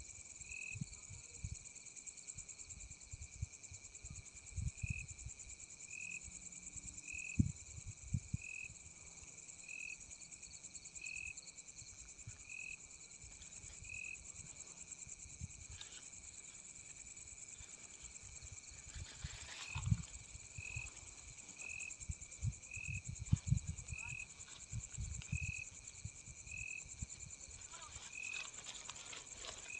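Night insect chorus: a steady high-pitched trill, with a second insect giving a short chirp about every second. Low thumps and rustles come and go, the most around two-thirds of the way through.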